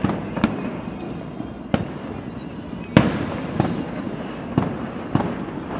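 Fireworks going off: about seven sharp bangs at irregular intervals, the loudest about three seconds in, over a continuous rumble and crackle of further bursts.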